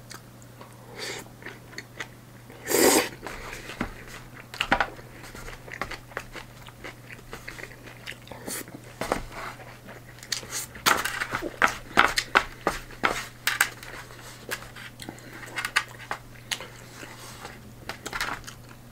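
A man chewing and biting food up close, with many short irregular clicks and smacks of eating. There is one longer, louder mouth noise about three seconds in.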